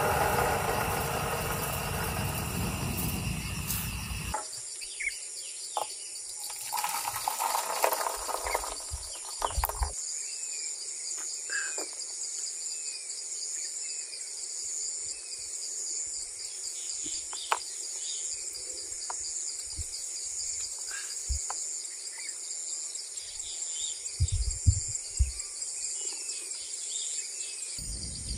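Steady high-pitched chorus of forest insects such as crickets, with scattered short bird chirps. A louder rushing noise covers the first four seconds and comes back briefly around seven to nine seconds in.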